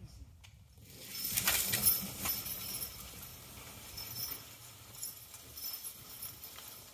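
Percheron–Standardbred cross draft mare skidding a log through snow: steps crunching in the snow, harness clinking and the log dragging. Loudest between about one and two and a half seconds in.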